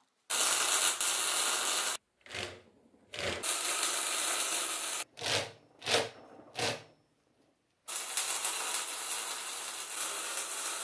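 Electric arc welding crackling and hissing steadily, in three runs that start and stop abruptly, with a few short sharp sounds between them.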